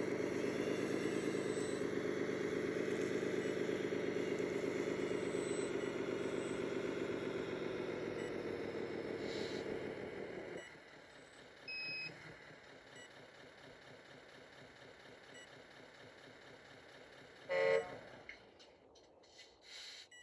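Radio-controlled construction models running: a steady mechanical engine-like drone with many overtones, which drops away suddenly about halfway through and leaves a quieter hum. Near the end there is a short loud tone, like a horn toot.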